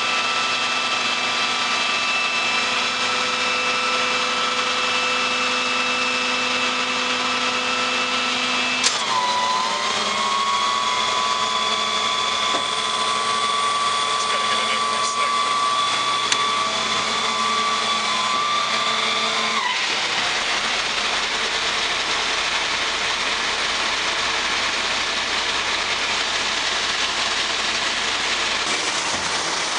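Diesel trash truck running with the whine of its hydraulics as the NEW-WAY Mamba side-loader's packer panel cycles. About nine seconds in there is a click and the whine dips, then holds at a higher pitch; around twenty seconds the whine stops, leaving the engine running steadily.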